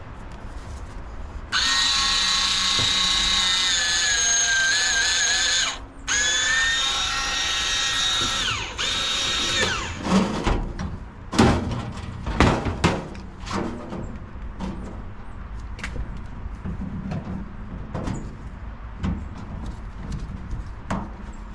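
Power drill running in two long runs of about four seconds each, a steady whine that dips in pitch near the end of each run. These are followed by a string of knocks and clatter.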